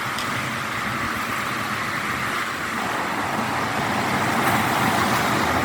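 Strong wind with the sea surging, a steady rushing noise that broadens and grows a little louder about halfway through.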